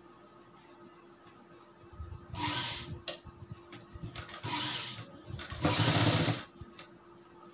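Pioneer sewing machine stitching fabric in three short runs, each well under a second long, with pauses between as the cloth is guided.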